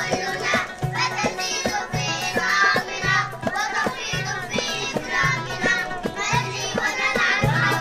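A group of young children singing together over instrumental music with a steady beat and a repeating bass line.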